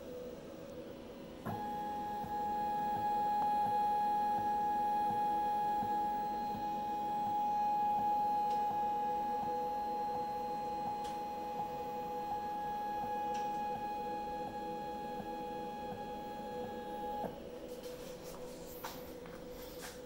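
Stepper motor whining with a steady tone and a faint click repeating about three times a second, over a low steady hum. It starts suddenly about a second and a half in and cuts off about three seconds before the end. This is the rhythmic clicking fault, which persists with new motors and drivers; the owner suspects the controller or the Mach3 configuration.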